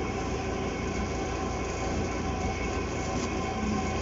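Steady low rumble with a hiss, like background machine noise, running evenly without breaks.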